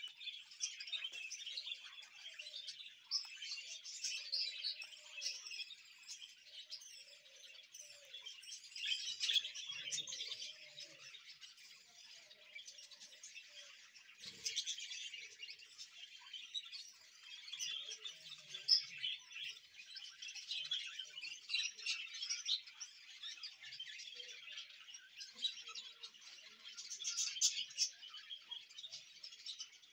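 A flock of budgerigars chattering and chirping together in a continuous, dense, overlapping twitter.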